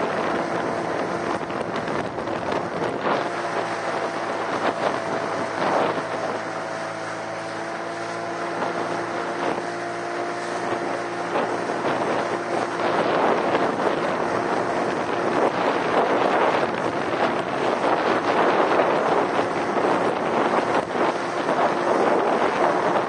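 Wind buffeting the microphone on an open boat, over a boat engine's steady hum that stands out in the middle of the stretch and fades back into the wind later.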